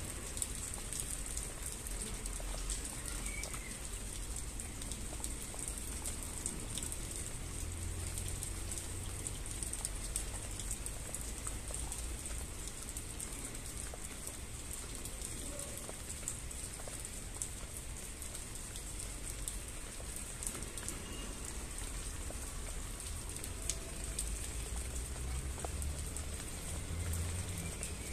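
Steady rain: a continuous hiss with many individual drops ticking on a surface, and a low rumble that swells briefly twice.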